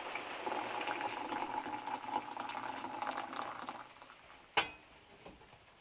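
Water boiling in an enamel kettle on a portable gas stove: a steady bubbling hiss with a faint hum, which stops suddenly a little before four seconds in as the kettle is lifted off the burner. About a second later comes one sharp click, then a fainter one.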